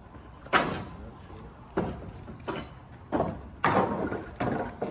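Demolition bar striking and prying at wooden framing: about seven sharp knocks and cracks of wood, irregularly spaced.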